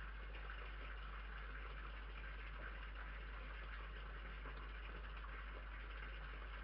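Steady hiss with a constant low electrical hum from a security camera's microphone. No separate sounds stand out.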